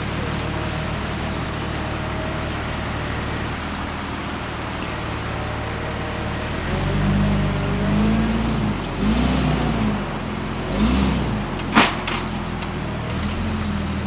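Off-road vehicle's engine running steadily, then revving up and down several times from about halfway in. A single sharp crack comes near the end.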